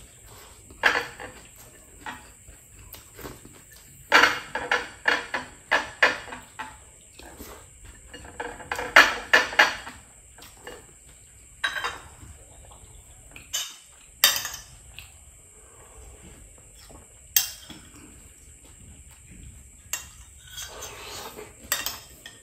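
Tableware sounds during a meal: sharp clicks and clatters of cutlery and plates against ceramic, coming in two quick runs about four and nine seconds in and singly in between. A spoon clinks in a soup bowl near the end.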